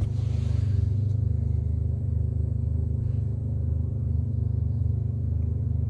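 Chinese 5 kW diesel air heater running in its start-up phase, a steady low hum from its fan motor.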